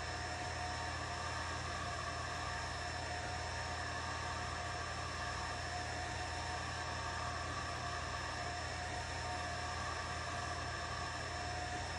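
Atomstack A10 Pro diode laser engraver running while it engraves a ceramic subway tile. It gives a steady fan-like whir with a few faint constant whining tones over it.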